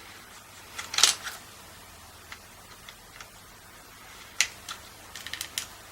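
Small sharp clicks and taps of hard plastic and metal parts and a screwdriver being handled. The loudest is a cluster about a second in, then a single click, then a quick run of clicks near the end.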